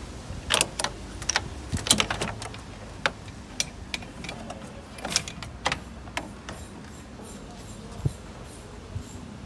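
Sharp metal clicks and clinks, coming thick in the first two seconds and then scattered, as an AC low-side hose and its metal pipe are worked loose and lifted out of a car's engine bay.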